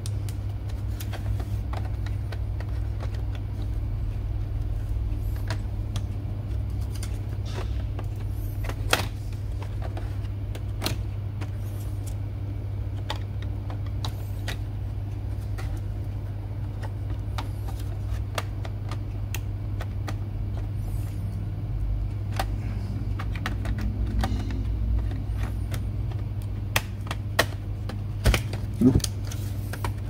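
Scattered clicks and light taps of a metal hard-drive caddy holding an SSD being handled and pushed into a laptop's drive bay, with a few sharper clicks near the end. A steady low hum runs underneath.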